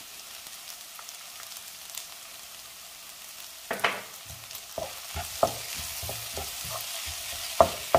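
Sliced onions sautéing in coconut oil in a pan, a steady sizzle as they soften. From about four seconds in a wooden spatula stirs them, with repeated scraping and knocking strokes against the pan.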